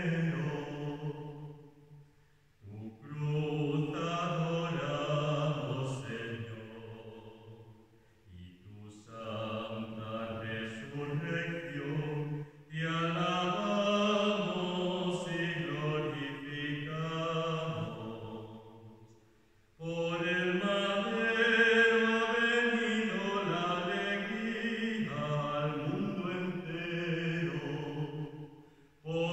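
Unaccompanied liturgical chant of the Lauds office, sung in about five long phrases with short pauses between them.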